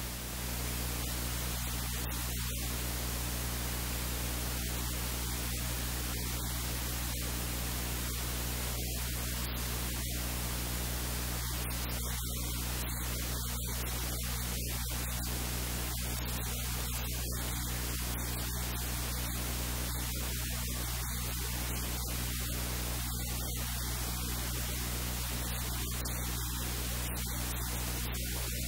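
Steady hiss like static across the whole sound, with a low electrical hum underneath; no other sound stands out.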